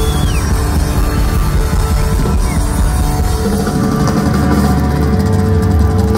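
Live band playing rock music, loud and steady over the arena PA, with a drum kit and guitar.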